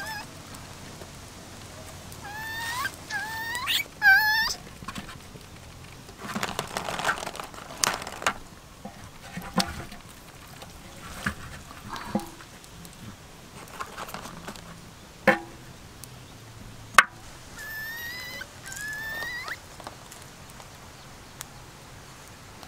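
A young monkey giving short, high squeaky calls that rise in pitch, in a bout about three seconds in and another near the end. Sharp clicks and knocks of a clay pot and food being handled come in between.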